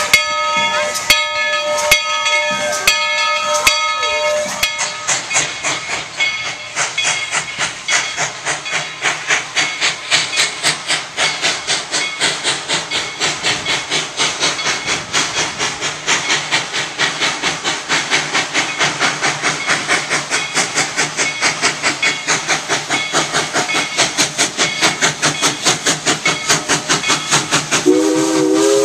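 Steam locomotive at work: its bell rings about once a second for the first few seconds, then the exhaust chuffs in a fast, even rhythm with a steady steam hiss as the train comes on. Near the end the steam whistle begins to blow a chord.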